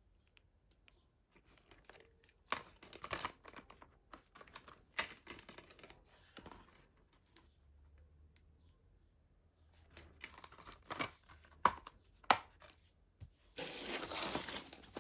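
Plastic packaging crinkling and tearing in several bursts, with two sharp clicks a little past the middle. The longest and loudest stretch of crinkling comes near the end.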